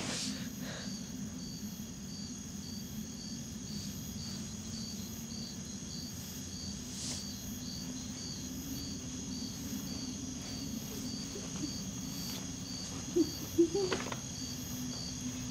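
Crickets chirping steadily at night, a pulsing trill about twice a second, over a low steady drone. Near the end come two brief sharp sobs from a frightened woman.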